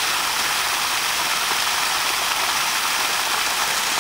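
Steady rushing hiss of running water, even throughout with no breaks.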